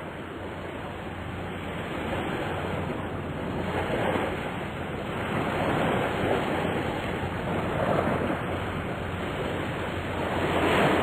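Steady rushing noise like ocean surf, swelling and easing every couple of seconds.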